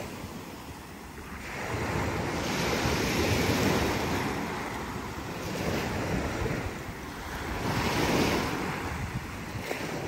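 Small waves breaking and washing up on a sandy beach. The surf swells and fades every two to three seconds, loudest about three and a half seconds in and again about eight seconds in.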